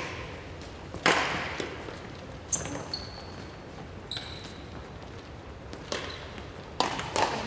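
Badminton rackets hitting a shuttlecock, a handful of sharp hits that echo in the large hall, the loudest about a second in and a quick pair near the end. Short high squeaks from shoes on the wooden court floor come in between.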